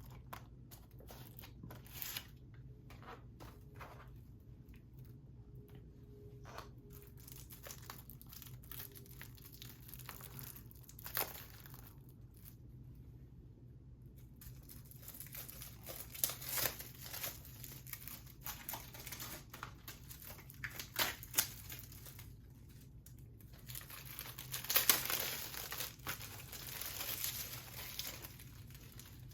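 Plastic shrink wrap being torn and crumpled off a Blu-ray case, in scattered crinkles and small clicks, with the loudest burst of crinkling near the end.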